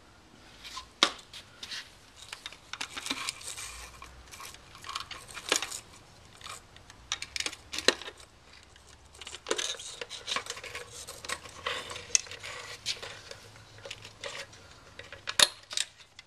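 Plastic clicks, taps and scraping as a metal pick pries apart the snap-together housing of a VW TDI's plastic fuel pickup and level-sender assembly. The clicks come irregularly throughout, with one sharp click near the end.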